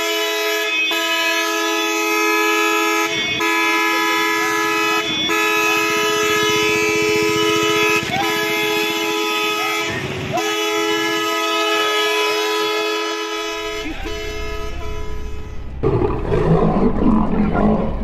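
Vehicle horn held in long, nearly continuous blasts with a brief break every two or three seconds, stopping about 13 seconds in. A low traffic rumble follows, and for the last two seconds or so lions are fighting.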